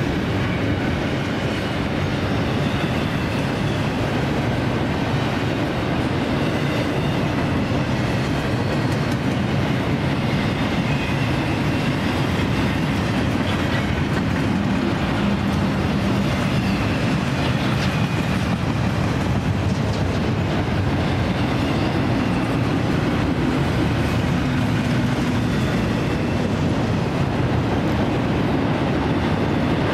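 Double-stack intermodal container train rolling past: the steady noise of the well cars' steel wheels running on the rails, unbroken throughout.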